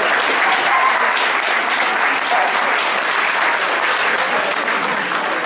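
Audience applauding steadily, with clapping from close to the microphone.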